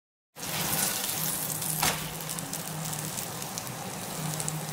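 Chapati sizzling steadily in a nonstick frying pan, with one brief knock about two seconds in.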